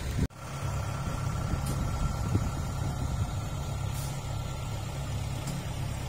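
Kubota DC60 rice combine harvester's diesel engine running steadily with a low, even drone.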